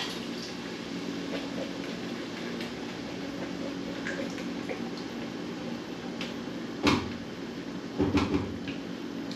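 Crushed tomatoes being poured from a container into a pot of sautéed vegetables, with faint scrapes and plops, one sharp knock about seven seconds in and a few more knocks a second later, over a steady low hum.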